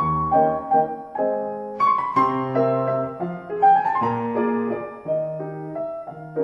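Piano music: single notes and chords changing about every half second.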